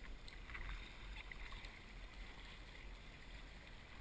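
Kayak paddles splashing and river water sloshing around inflatable kayaks, with a few small splashes in the first second and a half over a steady low rumble.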